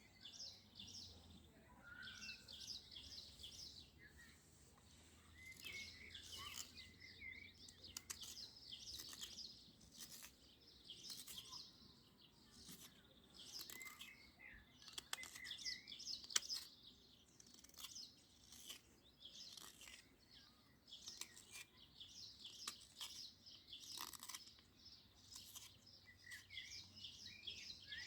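Small birds chirping and singing, with scattered faint sharp clicks; the loudest click comes about halfway through.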